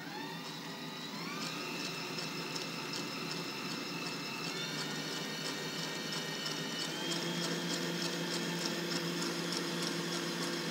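Electric stand mixer whisking egg whites at low speed while hot sugar syrup at 121 °C is poured in for Italian meringue. Its motor whine steps up in pitch a few times, with a faint regular ticking from the whisk.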